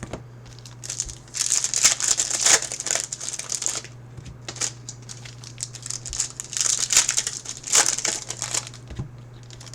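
Plastic wrapping crinkling and tearing in irregular bursts as trading-card boxes and packs are unwrapped, over a low steady hum.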